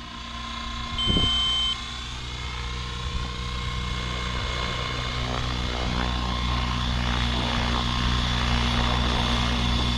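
Align T-Rex 650X electric RC helicopter flying in normal flight mode: the steady whine of its motor and rotor blades, growing gradually louder. A short high beep sounds about a second in.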